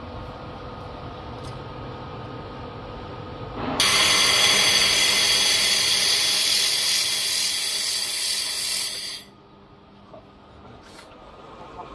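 Leapion 1.5 kW fiber laser welding machine firing a weld: a loud steady hiss with a whine starts suddenly about four seconds in and cuts off sharply some five seconds later, over the machine's steady hum.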